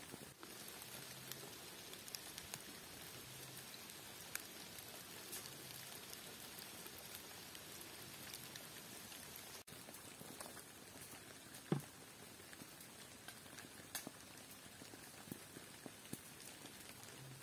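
Light rain falling, an even patter of drops with scattered small ticks, and one sharper tap about two-thirds of the way through.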